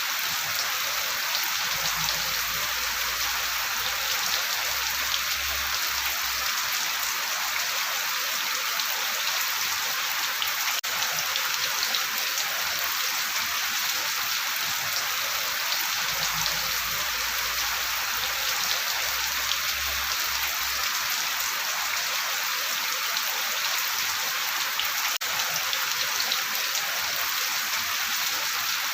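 Steady rain falling, a continuous hiss with the fine patter of individual drops hitting a surface.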